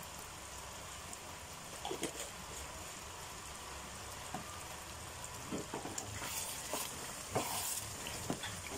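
Thick tomato-based beef stew simmering in a shallow pan with a low, steady bubbling. A wooden spatula stirs it, scraping and knocking against the pan now and then, and the stirring gets busier in the second half.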